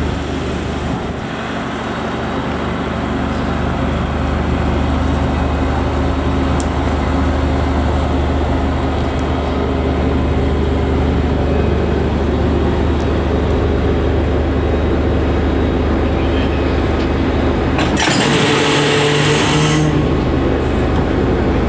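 Diesel engine of a railway track-maintenance motor car running steadily with a low hum while it shunts a rake of flat wagons. About eighteen seconds in, a hiss of air lasts about two seconds.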